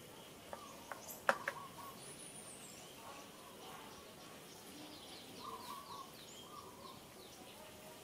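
Several wild birds chirping and calling, including a high falling call about two seconds in and a quick run of chirps past the middle. A few sharp clicks about a second in are the loudest sounds.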